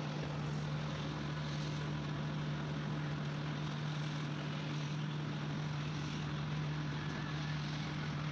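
Steady low machine hum with a constant wash of noise behind it.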